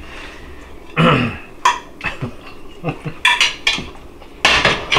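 A plate and cutlery clinking and scraping in several short, sharp knocks.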